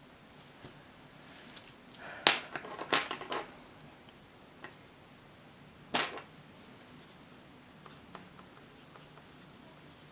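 Pen on a spiral notebook on a wooden desk: a quick run of sharp scratching strokes and taps about two seconds in, and one more sharp stroke near six seconds, over quiet room tone.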